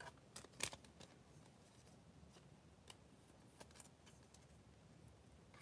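Faint crinkling of a foil trading-card pack wrapper being torn open by hand: a few sharp crackles in the first second, then scattered light ticks.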